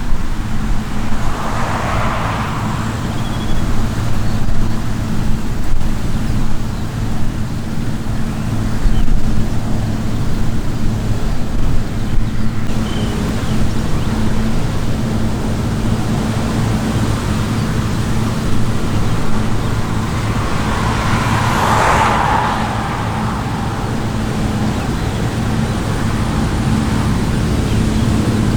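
Diesel engine of harvest machinery running steadily with a constant low hum and heavy rumble, and two brief swells of hiss.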